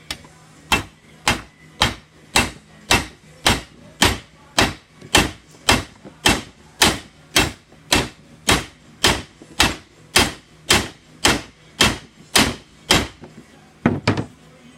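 Hammer striking the head of a new pin on a Porsche 996 window regulator arm, about two steady blows a second, some two dozen in all, then a few quick lighter taps near the end: the pin head is being peened flat so the pin does not move.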